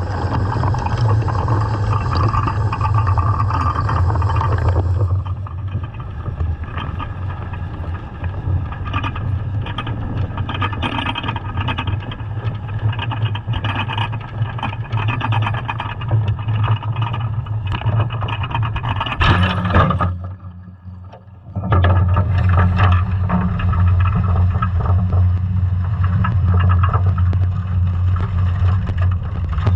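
Scallop dredge under tow, heard from a camera mounted on it underwater: a steady low hum with irregular rattling and scraping. A loud scrape comes about nineteen seconds in, then the noise drops away for about two seconds before it returns.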